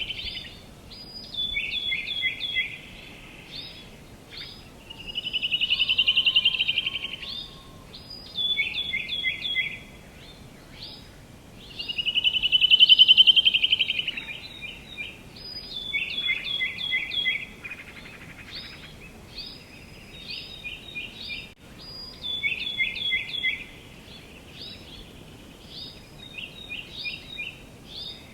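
Songbirds singing, with series of short high chirping notes repeating throughout and two louder rapid trills, about six and thirteen seconds in.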